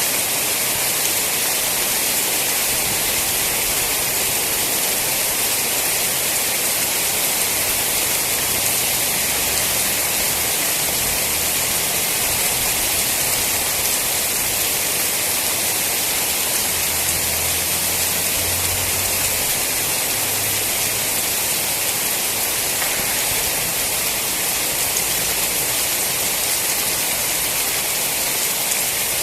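Steady, heavy rainfall: an even hiss of rain with no letup.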